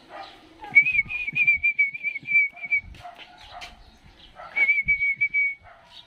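A person whistling two long, level, slightly warbling notes, the second shorter, to call a pet bird.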